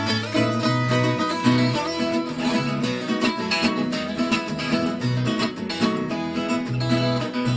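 Background music: fast plucked acoustic guitar over a steady bass line.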